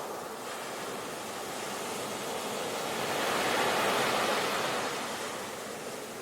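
Ocean waves breaking and washing onto the shore, a steady rush of surf that swells to a peak about halfway through and then eases back.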